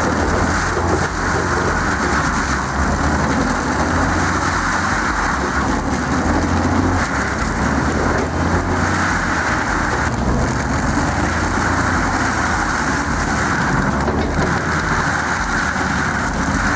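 AHWI RT800 stump shredder running under heavy load, its carbide-toothed rotor grinding through tree stumps: a steady, dense grinding noise over a constant low engine hum.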